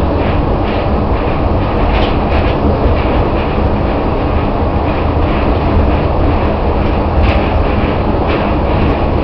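Running noise inside a New Shuttle car, a rubber-tyred automated guideway train moving along its elevated concrete guideway: a loud, steady rumble with a low hum and faint regular ticking.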